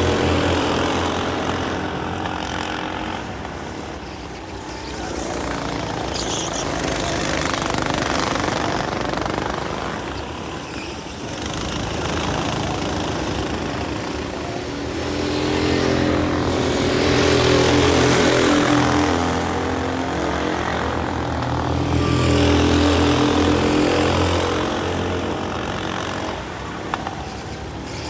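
Several go-kart engines running as a pack of karts laps the circuit. The engine note swells as karts come close and fades as they move away, rising and falling several times.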